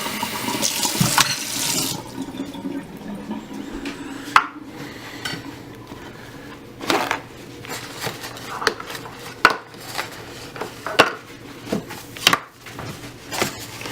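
Kitchen tap running as a dirty coffee-making part is rinsed out, the water cutting off about two seconds in. After that come scattered clinks and knocks of dishes and metal parts being handled.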